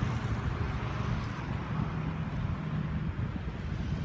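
Road traffic noise from cars on a wide street: a steady low rumble of engines and tyres.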